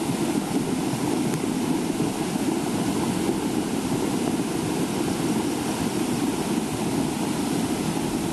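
Muddy floodwater rushing fast across a road, flowing like a river: a steady, unbroken rush of water noise.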